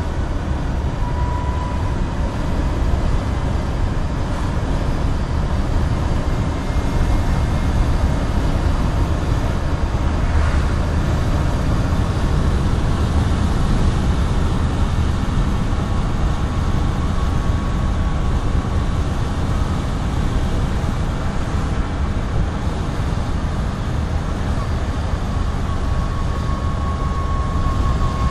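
Renault Twizy electric car driving at about 50 km/h, heard from inside its cabin: steady wind and road rumble with a thin electric motor whine that rises slightly in pitch as the car speeds up near the end.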